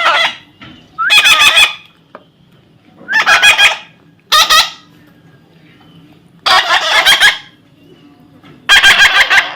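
Pet parrot screeching: a series of about six loud, harsh calls, each under a second long, with short pauses between.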